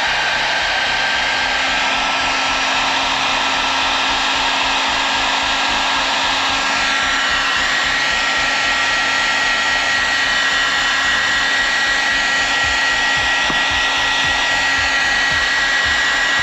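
Electric heat gun blowing steadily, a rush of air with a high whine from its fan motor, shrinking heat-shrink tubing over a freshly crimped ring terminal on a battery cable wire.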